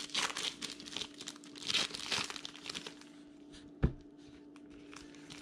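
Foil wrappers of 2019 Diamond Kings baseball card packs crinkling and tearing as they are ripped open by hand, with the cards inside rustling against each other. The crackle is busiest in the first three seconds, and a single knock sounds about four seconds in, over a faint steady hum.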